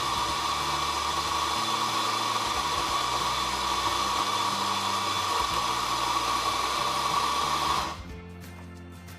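Electric coffee grinder running steadily as it grinds beans for an espresso shot, cutting off suddenly about eight seconds in.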